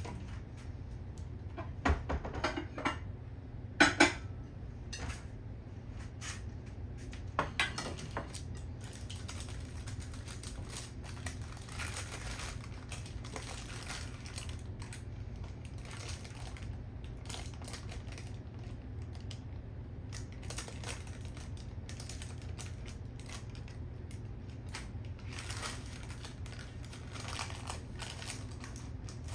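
Kitchenware clinking and knocking during food preparation: a few sharp clinks in the first eight seconds, the loudest about four seconds in, then lighter scattered clicking. A steady low hum runs underneath.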